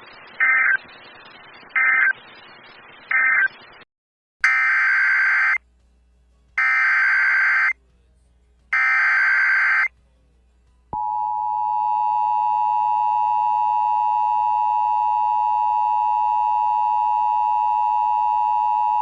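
Emergency Alert System tones. First come three short bursts of SAME digital data, the end-of-message code that closes the previous alert. Then come three longer SAME header bursts announcing the next alert, and a little past halfway the steady two-tone EAS attention signal starts and holds.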